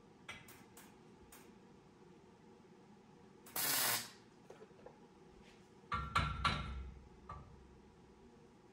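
Metal parts being handled: a few light clicks, then a half-second burst of hiss. About 6 s in, several heavy metallic clanks ring briefly, and one lighter knock follows.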